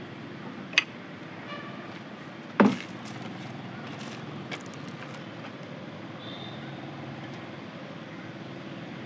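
Two sharp metallic clinks, one about a second in and a louder one about two and a half seconds in, followed by a few faint ticks, as wheel nuts and tools are handled while a car wheel is taken off, over a steady background hum.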